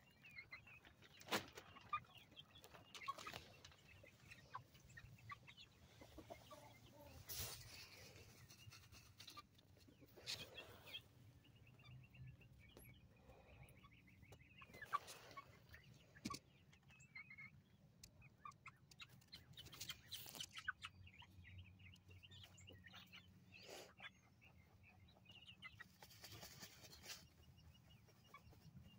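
Young Barred Rock and Black Australorp chickens softly clucking and peeping, with scattered brief scuffs and rustles every few seconds.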